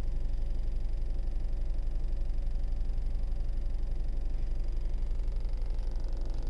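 Skoda Kushaq running steadily, a low drone with a fast, even pulsing, in the 1000–2000 rpm range where the owner reports a rattling noise.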